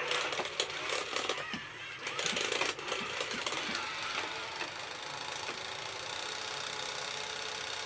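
Robosapien V2 toy robot's small electric gear motors whirring and clicking as it moves, with scattered clicks at first and then a steady, rapid buzzing from about five seconds in.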